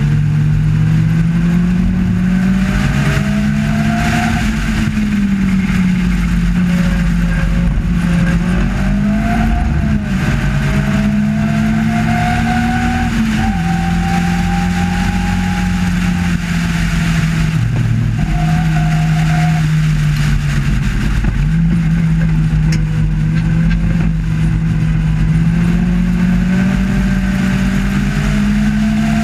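Sports-racing car's engine at racing speed, heard from the cockpit, its pitch climbing steadily through each gear and dropping sharply a few times at gear changes, over constant wind and road noise.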